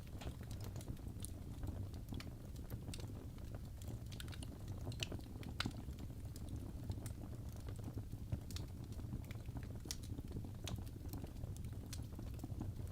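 Fireplace fire crackling: irregular sharp pops and snaps, a few louder ones among them, over a steady low rumble of the flames.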